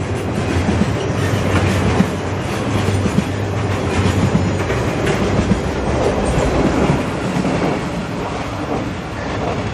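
Norfolk Southern freight cars loaded with stacked rail rolling past close by, a steady rumble with wheels clattering over the rail joints. The rumble eases near the end as the last car goes by.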